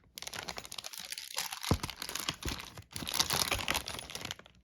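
Packaging being torn open and crinkled by hand: irregular crackling and ripping with short pauses.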